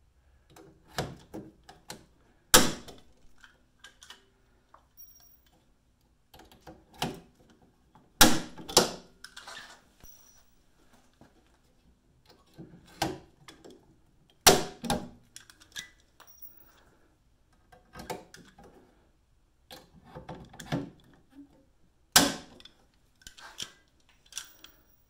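Hand rivet gun setting 1/8-inch pop rivets in an aluminium bracket: the handle is squeezed repeatedly with small clicks, and four times there is a loud sharp snap as a rivet's mandrel breaks off, one for each rivet set.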